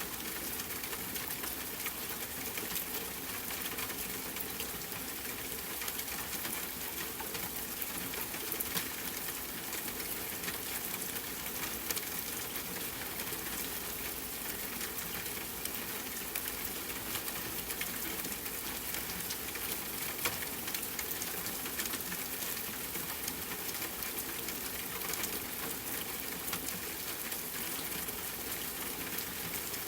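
Steady rain pattering on tent fabric, mixed with a crackling campfire that gives scattered sharp pops, a few of them louder.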